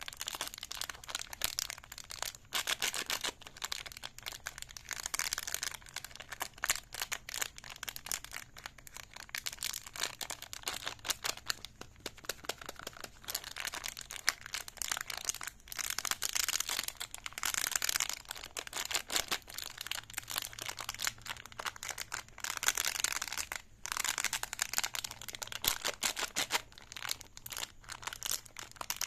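Plastic wrapper on a big spiral lollipop crinkling as it is handled and opened, a dense crackle that comes in bursts with short pauses.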